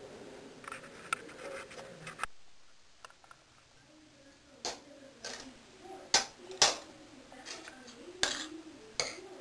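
Metal spoon and fork clinking and scraping against a ceramic plate of noodles: about six sharp clinks in the second half, the loudest two close together in the middle.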